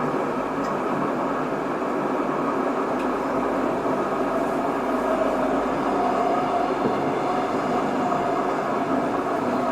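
Tokyo Metro 07 series VVVF-inverter-controlled electric train running between stations, heard from inside the car: a steady rumble of wheels on rail. A faint steady whine comes in about halfway through.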